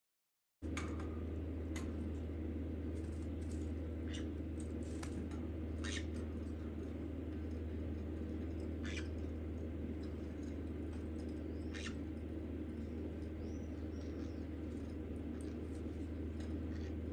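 A steady low hum, with scattered small clicks and scratches and a few faint high peeps from a baby green-cheeked conure. The sound starts abruptly about half a second in.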